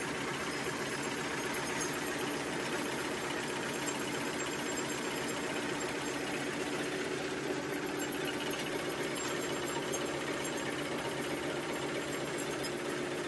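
Four-line 1/6-fold napkin tissue machine running: a steady, dense mechanical clatter with a steady hum under it.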